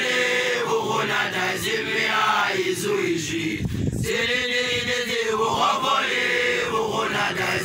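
A group of young men's voices chanting a song together in long sung phrases, one voice leading, with a short break for breath a little before the midpoint. They are makoloane, newly graduated Basotho initiates, singing in their initiation style.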